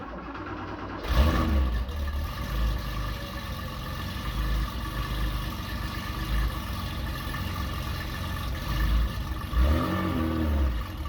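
A 1982 Porsche 911 SC's air-cooled 3.0-litre flat-six (930/10) with a stainless steel sport exhaust running under way. The engine swells louder twice, about a second in and near the end, its pitch rising and falling as it is revved.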